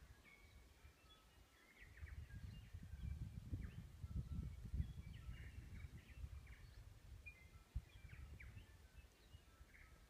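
Chorus of New Zealand bush birds: several birds giving short whistled notes and quick chirps, scattered and overlapping. A low, uneven rumble runs underneath, strongest in the middle.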